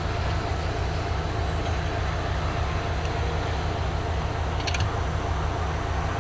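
Canadian Pacific GP20C-ECO diesel locomotive, with its MTU 12-cylinder engine, idling with a steady low rumble. A short high squeal sounds once near the end.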